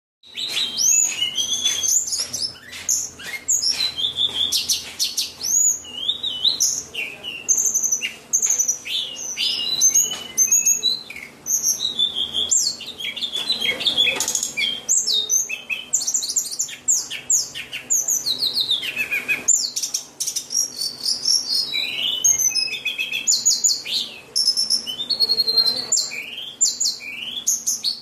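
White-rumped shama singing a long, varied song of clear whistles, sliding notes and rapid chattering phrases, with only brief pauses.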